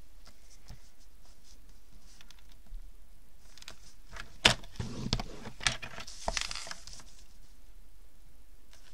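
Cardstock being scored on a paper trimmer with a clear plastic rail: faint ticks of the sheet being pushed against the guide, then a sharp plastic click about four and a half seconds in and two short scraping strokes as the scoring blade is run along the track.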